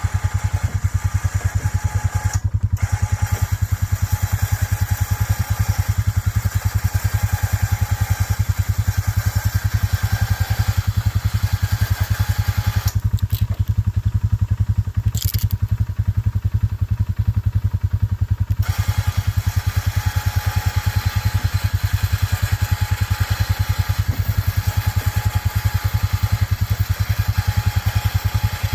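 A small engine idling steadily, with a rapid, even firing pulse.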